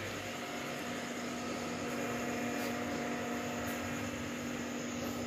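Steady background hum and hiss with a faint steady tone, like a fan or other appliance running; nothing is handled.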